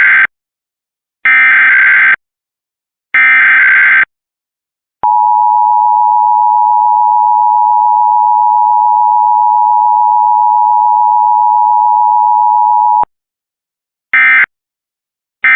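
Emergency Alert System signalling: the screeching data bursts of an EAS/SAME header, sent three times, then the two-tone EAS attention signal held steady for about eight seconds. Near the end, short end-of-message data bursts begin, about a second apart.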